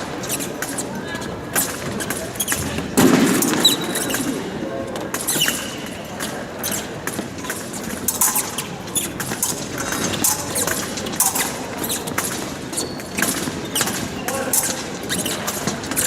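Fencing footwork and épée play during a bout: shoes squeaking in short high chirps on the piste, mixed with many sharp clicks and taps from blade contact and steps, and a louder stretch about three seconds in. The sound rings in a large hall.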